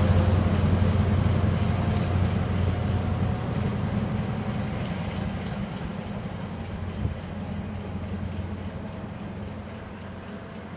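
ScotRail HST (InterCity 125) Class 43 diesel power car and train running away down the line, a steady low diesel drone with the rumble of the coaches that fades as the train pulls away.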